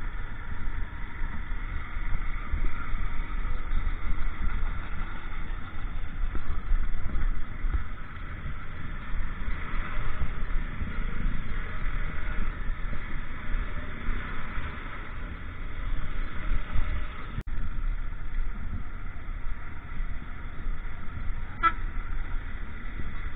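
Honda motorcycle on the move: a steady low wind rumble on the microphone over the engine and road noise, with a brief dropout about seventeen seconds in.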